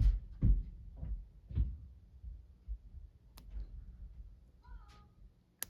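Light metallic clicks and taps of a lock pick working the pins inside a Master Lock 532 padlock under very light tension, with a few dull thumps in the first two seconds and a sharper click near the end.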